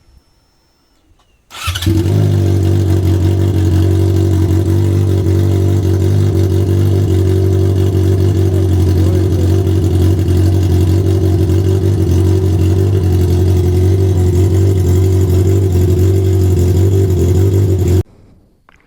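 Yamaha XJ6's four-cylinder engine starting about a second and a half in and then idling steadily and loudly through an open exhaust, the muffler tip removed so it runs on the bare pipe. It cuts off suddenly near the end.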